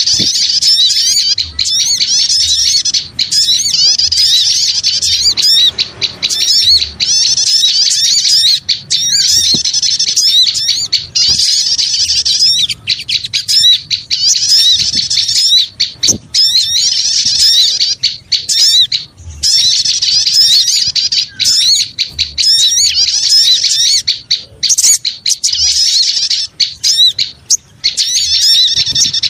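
A crowd of small birds chattering noisily, dense rapid high-pitched calls packed together with only brief pauses: a bird-lure (pikat) recording.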